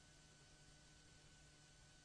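Near silence: a faint steady hiss with a low hum and a thin steady tone underneath.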